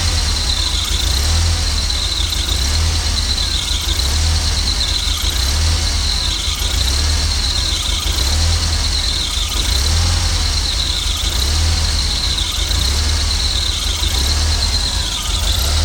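Jeep Comanche 2.5 four-cylinder engine idling low and unevenly, with a high squeal or whistle that wavers up and down every second or two along with the pulsing rumble of the engine. The owner asks whether it is a vacuum leak.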